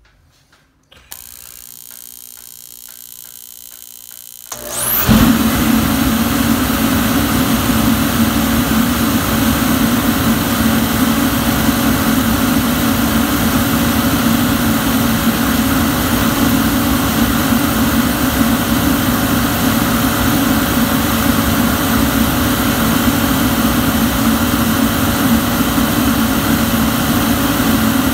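Dayton torpedo heater starting up: a quieter hum with faint ticking for a few seconds, then about five seconds in the burner lights and the heater settles into a loud, steady rush of flame and fan.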